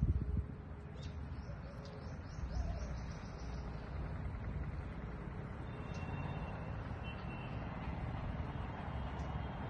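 Birds calling outdoors: a quick run of about eight high, even notes a second in, lasting about two seconds, then faint thin whistles later. This is heard over a steady low rumble, with a short low bump at the very start.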